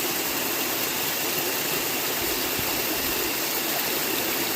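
A waterfall about 180 feet tall, crashing into its pool in a steady, unbroken rush of water.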